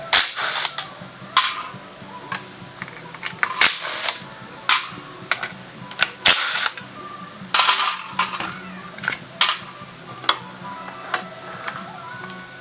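Workshop tool noise from scooter tyre work: sharp metal clicks and clinks with several short hissing bursts, over quiet background music.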